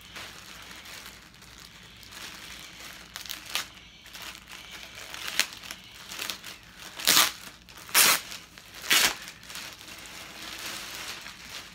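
Clear plastic garment bag crinkling and rustling as it is handled and the pants are pulled out. There are several louder sharp crackles in the second half.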